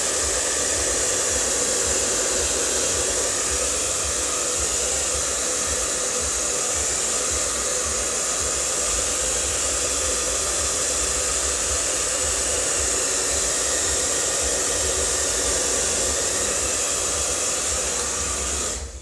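Handheld hair dryer blowing steadily, then switched off near the end.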